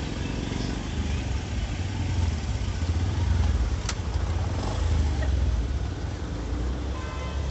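Traffic noise at close range: car and motorcycle engines idling and creeping in congested street traffic, with a steady low rumble. There is a single sharp click about four seconds in.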